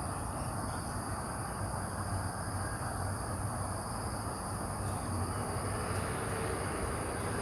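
Steady outdoor background noise: an even rumble with a low hum underneath and thin, unchanging high tones above.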